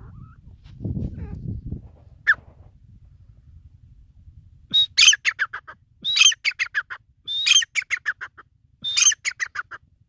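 Grey francolin calling: four loud phrases in the second half, each a high clear note followed by a quick run of shorter falling notes. A brief low rumble comes about a second in.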